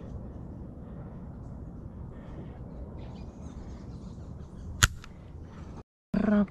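A shotgun misfiring: one sharp snap of the firing pin striking a shell that does not go off, about five seconds in, over steady outdoor background noise. The gun is failing to fire, striking the primers without setting them off.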